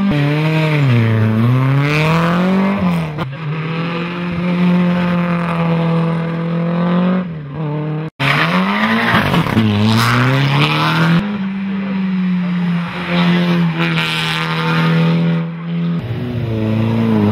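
Hill-climb race car engines at high revs, one car after another. The pitch falls and then climbs again as each car brakes for a bend and accelerates away, and in between it holds steady and high at full throttle. The sound breaks off briefly about eight seconds in.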